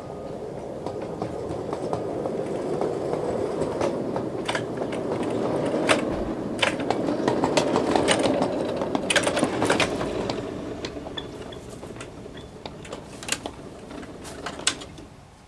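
A 5-inch-gauge ride-on miniature train rolling along its track. The rumble of the wheels on the rails builds as it comes nearer, then fades as it slows to a stop, with scattered sharp clicks throughout.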